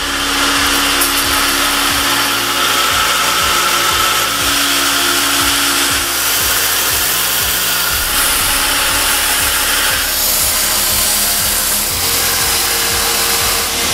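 Belt grinder running, a steel knife blank cut from a chainsaw blade being ground against the abrasive belt: a loud, steady grinding that changes tone a few times as the blade is worked.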